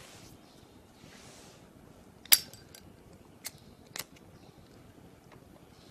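A few sharp metallic clicks over a low hiss: one loud click about two seconds in, then two fainter ones about a second later.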